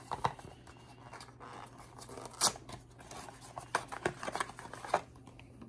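Hands unpacking a Cirkul flavor cartridge from its packaging: light rustling with scattered sharp clicks and snaps, the loudest about two and a half seconds in and a few more near the end.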